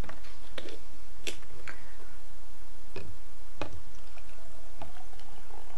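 A plastic water bottle being handled, with scattered clicks and crackles, then water starting to pour from it into the blender's glass jar near the end. A steady low hum runs underneath.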